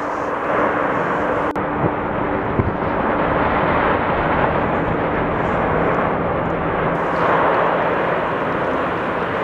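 Steady, rushing roar of an explosive volcanic eruption, with a faint low hum under it and a sharp click about a second and a half in.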